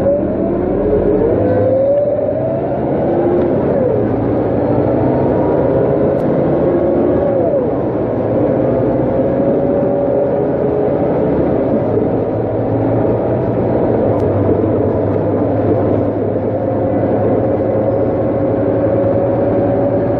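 Scania K230UB city bus heard from inside the cabin, accelerating through its ZF automatic gearbox: the engine drone and a gearbox whine rise in pitch, change a couple of times in the first several seconds as the gears shift, then climb slowly and steadily.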